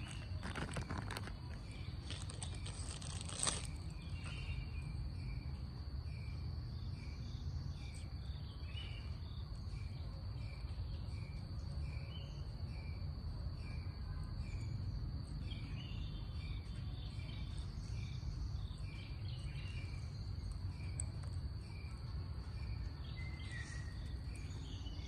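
Background ambience of a steady high insect drone and a run of short, regular chirps about twice a second over a low rumble. One sharp click comes about three and a half seconds in.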